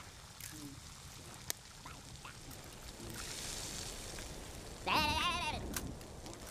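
Bacon and eggs frying quietly in a pan, a faint sizzle with a few small crackles. About five seconds in, a short wavering, muffled voice of the fire under the pan whimpers.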